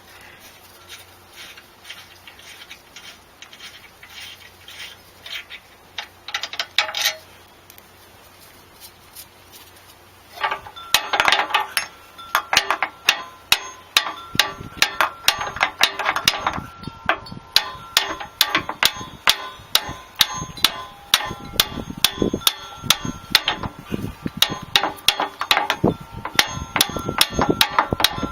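Hand tools working on steel: a few faint clicks, then from about ten seconds in a run of sharp metal-on-metal taps, several a second, each with a short ringing note.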